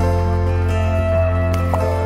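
Background music: a soft instrumental with held notes over a steady low bass.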